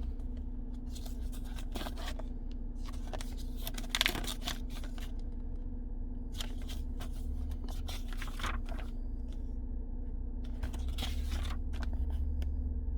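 Paper pages of a service history booklet being handled and turned, giving scattered short rustles and scrapes over the steady low hum of a Holden Commodore wagon's engine idling.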